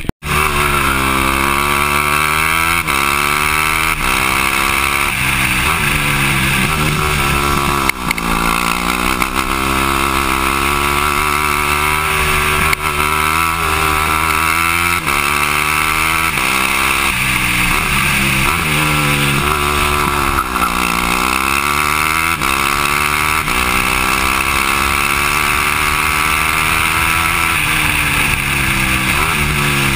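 Yamaha WR250F single-cylinder four-stroke engine in a go-kart, running hard under load, its pitch climbing and dropping again and again as the kart accelerates and slows for corners, with a deep dip about two-thirds of the way through.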